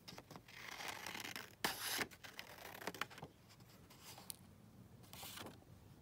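Scissors cutting through a book page: a rasping cut over the first two seconds, loudest near its end, then fainter paper handling with one light click.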